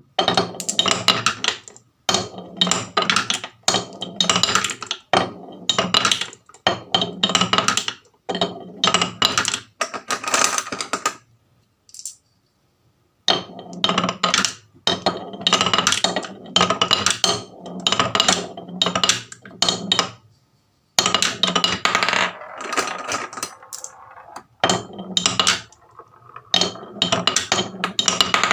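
Marbles rolling and clattering down a marble run, a dense stream of clicks and clinks in bursts of several seconds with two short pauses.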